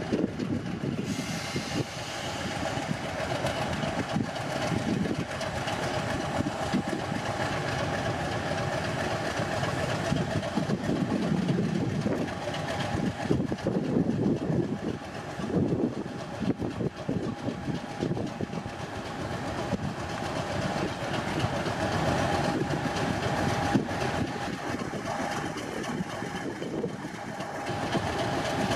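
Diesel locomotive running, a steady engine sound with a constant high whine held above it.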